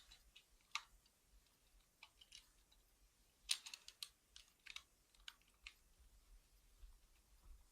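Sparse sharp metallic clicks of climbing hardware being handled: carabiner and rope descender clipped onto the rope, with a quick cluster of clicks about three and a half seconds in.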